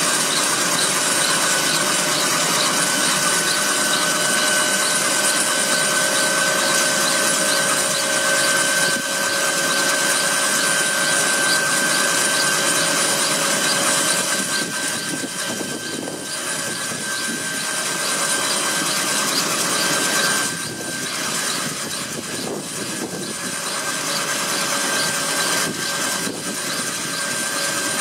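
Kaman K-MAX helicopter's turboshaft engine running with its intermeshing rotors turning on the ground: a steady turbine whine with several high tones over a dense rush of engine and rotor noise. The loudness dips briefly about halfway through and again a few seconds later.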